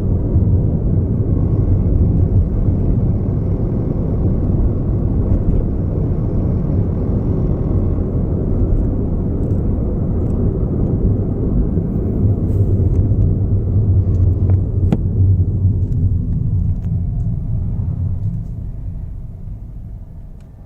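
Cabin noise of a 2018 Perodua Myvi driving at steady speed: a dense low rumble of road and engine, with a few faint scattered clicks from the dashboard rattle that comes on at a steady 40–60 km/h. The rumble fades down near the end.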